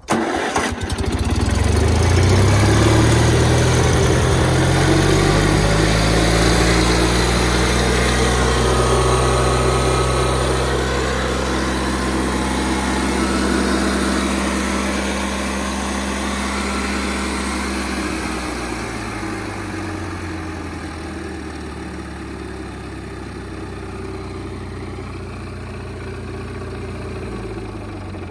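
Walk-behind stump grinder's small air-cooled gasoline engine starting and revving up over the first couple of seconds, then running steadily at speed. About 19 seconds in it drops to a lower, quieter speed.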